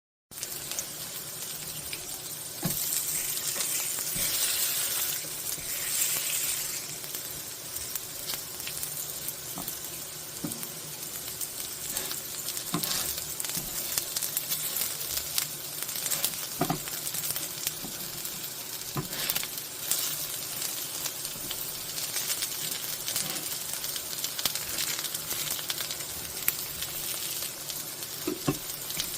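Korean jeon (savory pancakes) frying in oil in a pan: a steady sizzle, louder from about three to six seconds in, with scattered sharp clicks and ticks.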